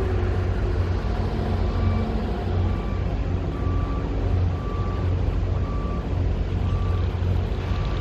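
Heavy machinery running with a steady low rumble, and a reversing alarm beeping about once every three-quarters of a second.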